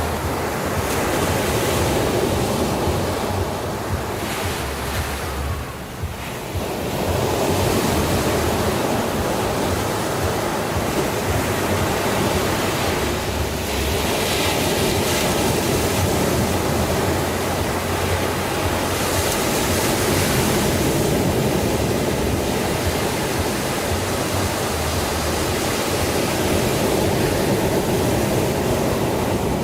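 Sea waves surging and washing on the shore: a continuous rush, with a brief lull about six seconds in and stronger hissing surges of breaking water a little past the middle.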